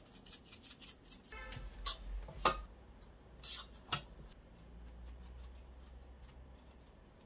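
Light kitchen handling sounds: scattered clicks and taps of utensils and dishes, with a faint low hum underneath from about a second in.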